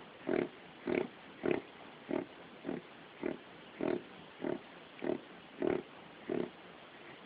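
A dog reverse sneezing: a steady run of short, rapid snorts drawn in through the nose, just under two a second, stopping shortly before the end.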